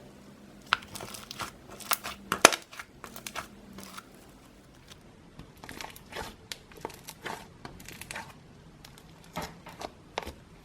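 Slime being squeezed and poked by hand, giving irregular sticky pops and crackles, loudest about two and a half seconds in.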